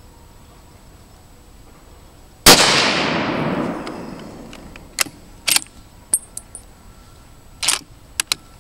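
A single rifle shot from a Ruger American bolt-action rifle in .270 Winchester, about two and a half seconds in. Its report echoes and dies away over a second or two. Several sharp clicks and clacks follow over the next few seconds.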